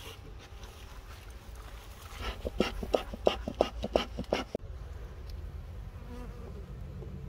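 Honeybees buzzing around an open hive, and a bee smoker's bellows squeezed about a dozen times in quick succession, some four or five puffs a second, a couple of seconds in.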